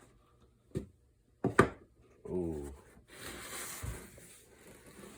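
Cardboard packaging being handled and a sleeve slid off a box: three sharp knocks, the loudest about one and a half seconds in, then a longer sliding rustle with a low thump near the end.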